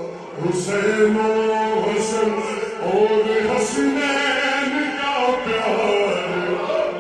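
Male voice chanting an Urdu qasida in long, drawn-out notes that bend in pitch, slowed down and heavily reverberated.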